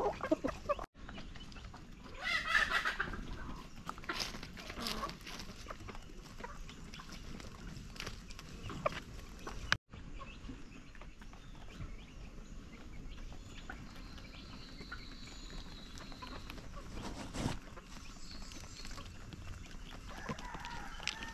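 Chickens clucking while pecking at feed on gravelly ground, with scattered short taps of beaks on the soil. A loud call about two seconds in lasts roughly a second and a half, and another call comes near the end.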